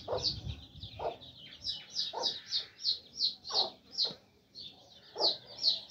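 Aseel chicks peeping in quick, high cheeps, several a second, with the mother hen clucking low every second or so.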